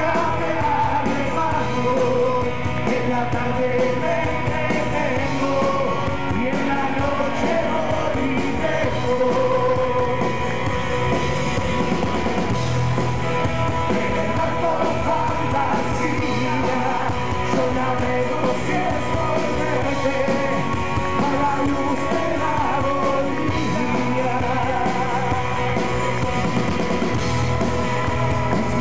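Live rock band playing: a singer singing into a microphone over electric guitars and drums.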